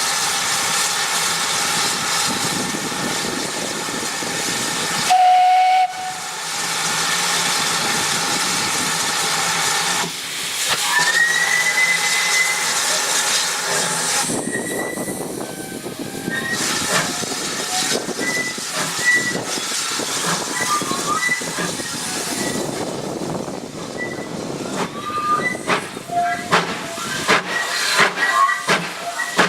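Steam locomotive 5164, a GWR Large Prairie 2-6-2 tank engine, hissing steam at a standstill, with a short loud whistle about five seconds in and a longer, higher whistle about ten seconds in. Near the end come sharp, regular exhaust beats as it starts away with a nine-coach train. Wind buffets the microphone.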